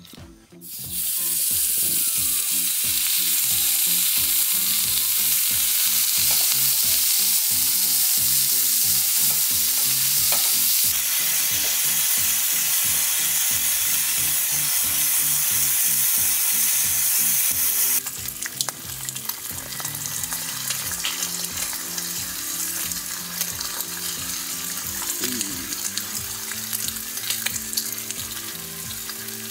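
Sliced pork belly frying on a hot griddle pan over a portable gas burner. A loud sizzle starts about a second in as the raw meat goes onto the pan. About two-thirds of the way through it drops to a quieter, crackling sizzle.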